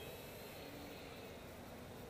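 Faint, distant whine of a radio-controlled P-47 model plane in flight, its pitch sliding slowly down, over a steady hiss of background noise.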